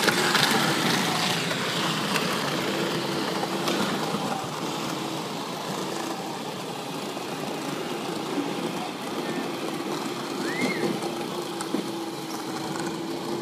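Electric motors and gearboxes of battery-powered ride-on toy vehicles whining steadily as they drive across the court, with their plastic wheels rolling; loudest at the start as the ride-on quad passes close, then easing off as they move away.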